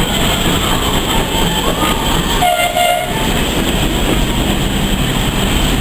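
Train running along the track, a loud steady noise throughout, with a brief higher tone about halfway through.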